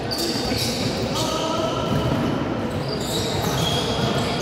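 Volleyball practice on an indoor court: balls bouncing and being struck, with several short, high sneaker squeaks on the floor.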